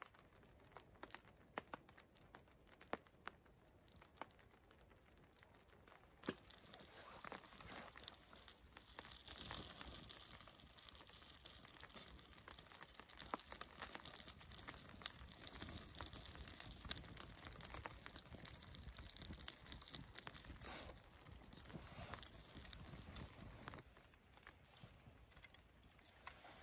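Wood shavings and dry tinder catching fire in a stainless steel kindling stove. There are a few scattered clicks at first; then a hiss and crackle of flames builds from about six seconds in, with sharp crackles and knocks of kindling going on, and eases off near the end.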